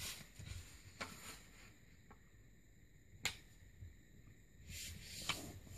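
Sheet of printer paper being folded and creased by hand: faint rustling, a sharp tick about three seconds in, and a longer rustle near the end.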